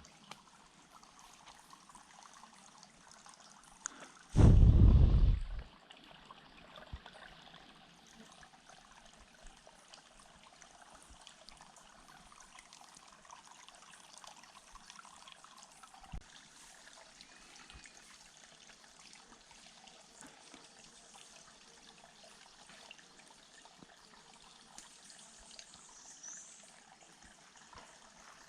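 Faint, steady trickling water. About four seconds in, a loud low rumble lasts about a second and a half, and a single short thud comes near the middle.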